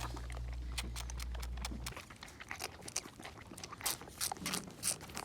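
Pet lambs making a run of irregular sharp clicks and crunches, with a low hum that cuts off about two seconds in.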